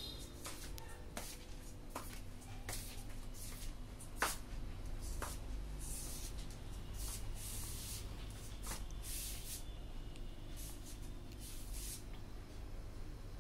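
Quiet room tone: a steady low hum with a few faint steady tones, broken by scattered soft clicks and rustles, thickest in the second half.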